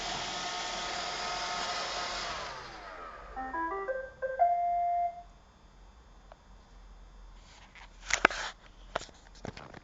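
iRobot Roomba 530 robot vacuum running, then its motors winding down about two and a half seconds in as it docks. It plays a quick rising tune of electronic beeps ending in one held note, the sign it has reached its dock, followed by a few light clicks near the end.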